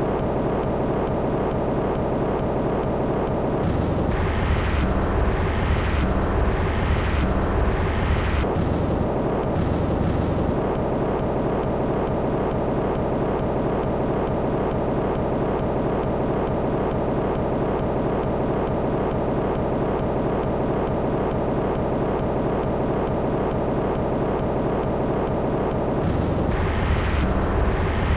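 Dense, steady rumbling noise drone from an experimental film soundtrack, with faint clicks at an even pace. A brighter, pulsing layer swells in between about 4 and 8 seconds in, and again near the end.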